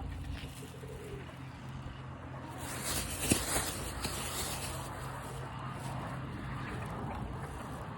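Wind rumbling on the microphone with a steady low hum underneath. A louder gust of hiss comes about three seconds in, peaking sharply, then the rumble goes on.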